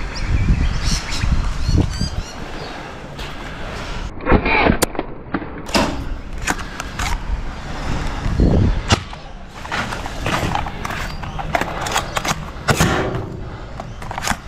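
Toy blaster shots, sharp pops and clicks at irregular intervals, over the rustle of a player moving and handling a blaster.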